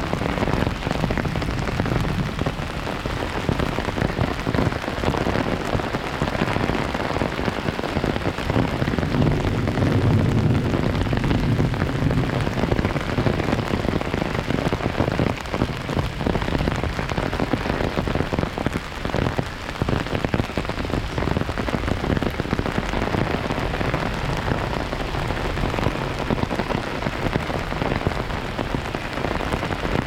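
Heavy rain falling steadily through the forest and drumming on a handheld umbrella. A deeper low rumble swells about ten seconds in.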